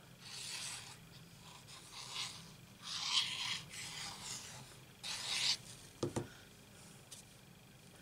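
Cardstock rubbing and scraping as a black card panel is glued and handled: several short scratchy rustles over the first five seconds or so, then a soft thump about six seconds in.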